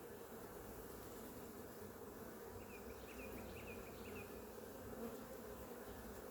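Honeybee colony buzzing steadily around an opened hive.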